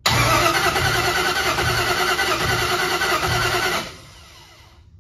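V8 engine cranked over on its starter for a compression test on one cylinder, without firing. The starter runs for almost four seconds with a regular heavier beat a little less than once a second as the tested cylinder comes up on compression, then cuts off. That cylinder then reads a healthy 160 psi.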